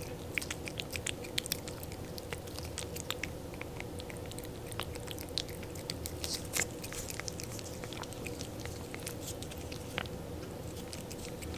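A cat licking a lickable cat treat from a squeeze tube: a steady run of quick, irregular wet lapping and smacking clicks.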